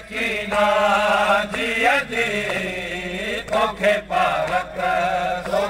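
A man's amplified voice chanting a noha, a Shia mourning lament, in long, wavering held notes. A few sharp slaps cut through, from hands beating on chests in matam.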